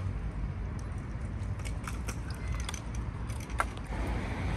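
Handling noise from a handheld camera carried while walking: a low steady rumble with scattered light clicks and jingles, one sharper click about three and a half seconds in.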